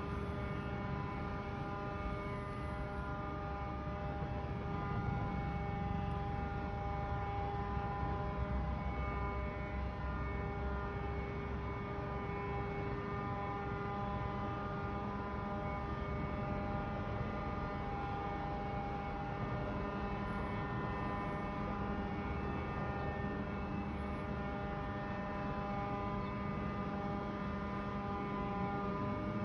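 A steady droning hum: several pitched tones held level over a low rumble, unchanging throughout.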